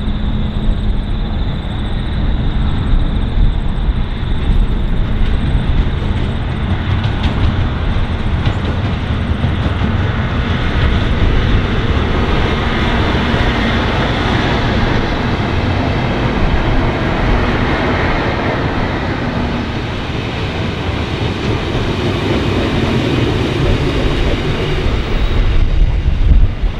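Long diesel-hauled freight train rolling past, a loud steady rumble of engines and wheels on the rails.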